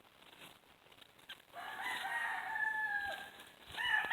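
A rooster crowing: one long crow starting about a second and a half in and dipping in pitch as it ends, then a second crow beginning near the end.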